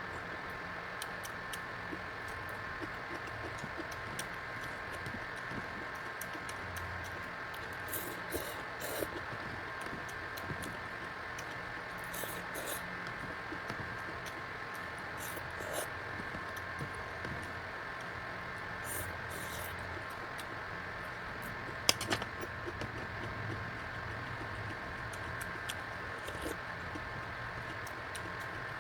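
Electric fan running steadily with a constant hum, under scattered small clicks and taps from eating; one sharper click stands out about two-thirds of the way through.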